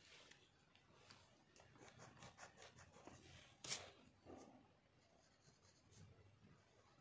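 Near silence with faint scratches and small taps of a graphite pencil and eraser handled on drawing paper, and one sharper click a little past halfway.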